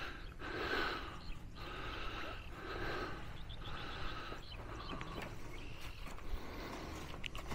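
Faint voices of people talking at a distance, over a low steady outdoor rumble.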